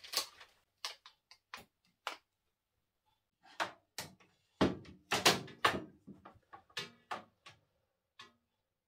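Sharp clicks, knocks and light rattles as a plastic LED grow-light bar is handled against the metal frame and glass shelf of a display cabinet. A few single knocks come first, then a busy run of knocking in the middle, and one last click near the end.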